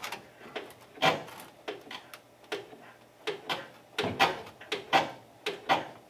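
Brake pedal and linkage of a 1958 Chevy Apache being pumped by hand: a string of short clunks and creaks, about two a second. The pedal goes to the floor and stays there with no return.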